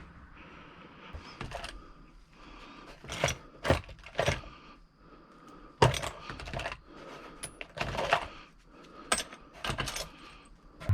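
Irregular clinks and clicks of small hard objects being handled, about a dozen separate sharp strikes with short pauses between them.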